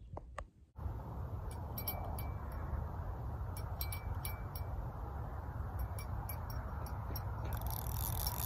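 Small bell on a fishing rod tip jingling in irregular light clinks as a fish pulls the rod tip down, over steady wind noise on the microphone.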